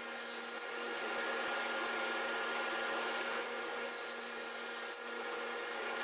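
SawStop table saw running steadily, its blade crosscutting a wooden board pushed through on a crosscut sled.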